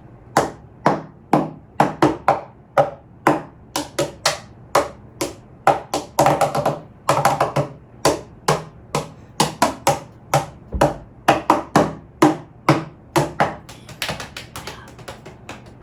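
Hands tapping and slapping on a desk and the body, beating out a song's rhythm in a steady run of sharp taps, several a second.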